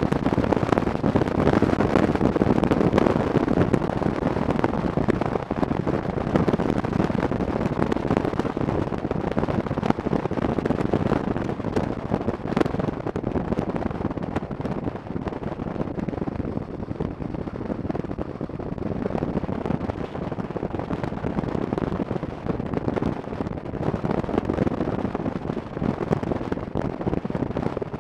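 Wind buffeting the microphone of a camera mounted on a motorcycle at road speed: a steady, rough rushing over the running noise of the motorcycle. It eases off a little partway through.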